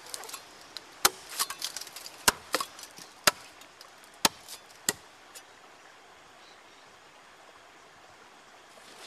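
Chopping blows into wood: about five sharp strikes roughly a second apart, with lighter knocks between them, over the first five seconds.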